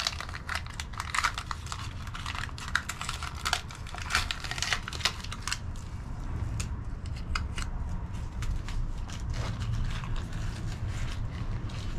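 Masking tape being peeled off a subwoofer's motor structure and crumpled in the hand: quick crackling rips and crinkles, dense for the first five seconds or so and then sparse, over a low steady hum.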